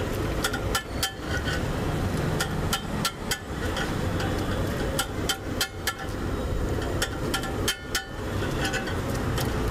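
Steel spatula striking and scraping a flat iron griddle in irregular metallic clinks, about two to three a second, as the buttered masala is worked on it. A steady low rumble runs underneath.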